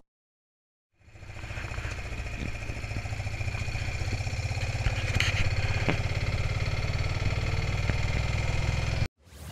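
Small engine of an auto-rickshaw running steadily as it drives along, heard from the passenger seat. It fades in about a second in and cuts off suddenly near the end.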